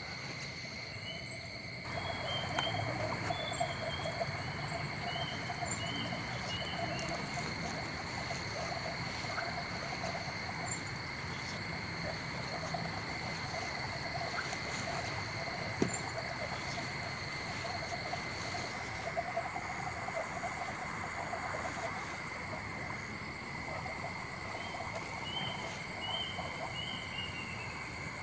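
Frog and insect chorus: a steady high trill over a warbling croaking chorus, with runs of short high chirps near the start and again near the end. It grows louder about two seconds in.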